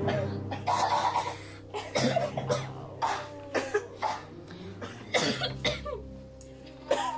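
Children coughing again and again in short separate fits, staged coughs of characters acting sick, over a low steady background music drone.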